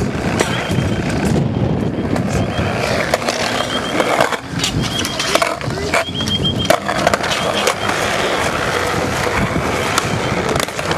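Hard wheels of a kick scooter rolling over concrete: a steady, rough rumble, with a few sharp clacks of impacts from about three to seven seconds in.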